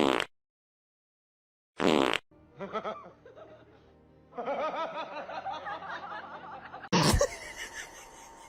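Two short, loud pitched sounds about two seconds apart, then music mixed with laughter, broken by another loud burst about seven seconds in.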